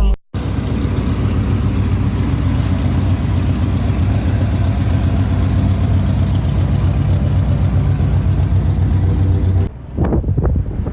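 A car's V8 engine idling steadily with a low, even pulse, most likely the 1972 Oldsmobile Cutlass 442. About a second before the end the sound changes and wind on the microphone comes in.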